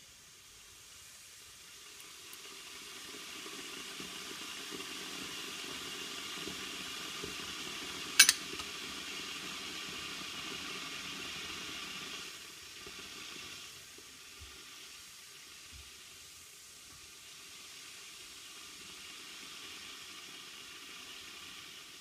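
La Pavoni Professional lever espresso machine hissing and sizzling as a shot is pulled, louder for the first half and then settling to a fainter hiss. A single sharp click about eight seconds in.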